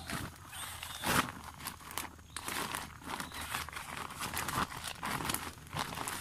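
Handling noise at a wire-mesh cage trap: irregular rustling and crinkling with many small clicks and knocks, as of hands working among dry grass, plastic and wire.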